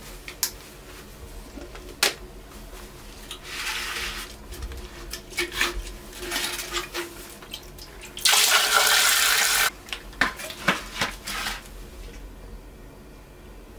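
Water poured from a stainless steel Grainfather brewing kettle into a toilet bowl: a short splash, then a loud gush about eight seconds in that lasts about a second and a half. Sharp knocks and clanks of the steel kettle come before and after.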